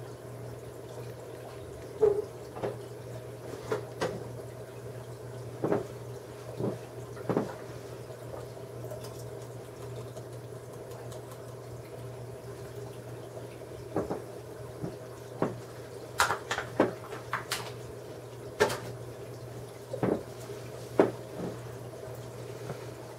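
Aquarium filter running: a steady low hum with water trickling, broken by scattered light knocks and clicks.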